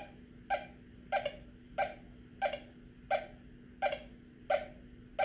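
Teknetics T2 SE metal detector with an NEL Sharpshooter coil giving a short beep on each sweep of the coil over a penny, about three beeps every two seconds, over a faint steady hum. In its 2C tone mode the iron beside the penny is muted, so only the penny sounds.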